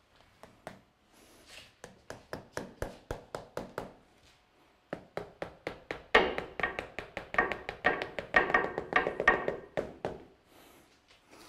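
Rapid, even tapping and knocking during hand work on a bonsai pot, about five or six strokes a second, in two runs; the second run, starting about five seconds in, is louder, with a ringing tone under the strokes.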